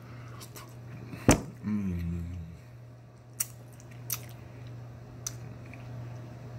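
Someone eating chicken feet: a loud sharp click about a second in, a short hummed "mm", then a few fainter clicks, over a steady low hum.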